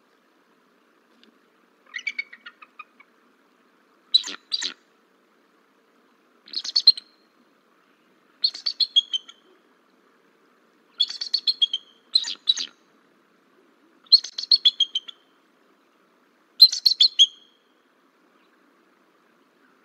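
Bald eagles calling: a series of quick, high, chittering bursts of notes, about eight in all, coming every couple of seconds.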